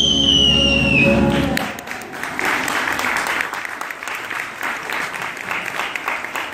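A song ends on a long held high note over its accompaniment, cutting off about a second and a half in, and then an audience applauds.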